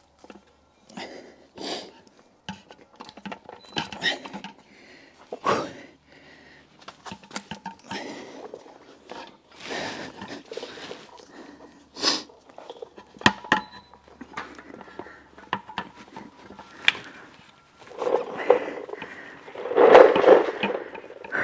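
Scattered metal knocks and clinks as a ZF manual transmission is wiggled by hand against the adapter plate on an LS V8 engine. Near the end come louder grunting, straining breaths.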